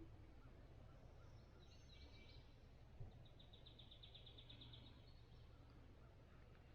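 Faint songbird calls over a low wind rumble: a twittering phrase about two seconds in, then a rapid high trill of quickly repeated notes a little after the middle. A single soft knock about three seconds in.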